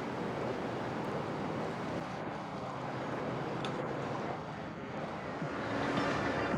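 Steady rush of wind and water with a motorboat running, the motor's tone coming up near the end.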